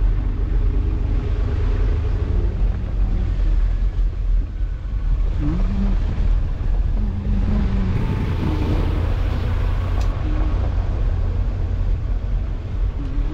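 Steady low rumble of a moving vehicle and wind buffeting the microphone while travelling along a dirt road, with a few faint short tones partway through.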